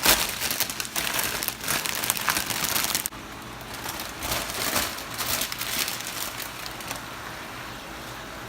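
Spinach going into a hot pan of cooking chicken: loud, irregular crinkling and crackling for about three seconds. The sound then cuts off abruptly to a much quieter background.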